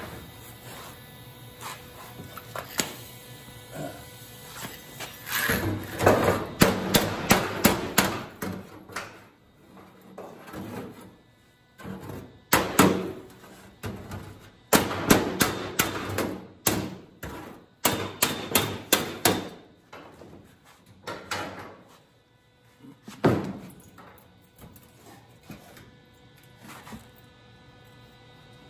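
Runs of quick hammer blows on sheet steel, about four or five a second, with pauses between and one heavy blow later on: a replacement quarter panel being knocked into place for fitting.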